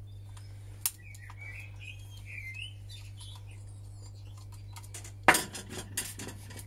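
Screwdriver working Loctite-fixed screws out of the end cap of a Vax handheld vacuum's small motor: light clicks and scraping, then about five seconds in a sharp knock followed by a brief rattle of metallic clinks.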